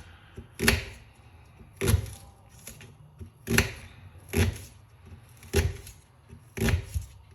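Kitchen knife cutting through onions and striking a chopping board: six separate chops about a second apart.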